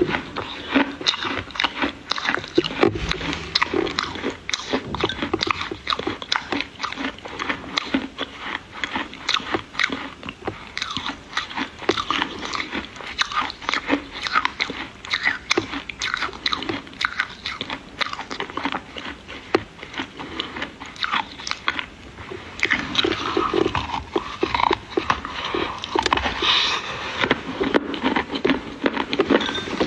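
Close-miked biting and chewing of dry Chinese clay: a dense run of crisp crunches, growing a little thicker and louder about 23 seconds in.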